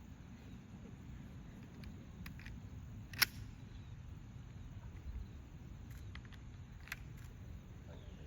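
A low steady rumble with a few short, sharp clicks, the sharpest about three seconds in and smaller ones near two, six and seven seconds. There is no launching shot from the rifle grenade.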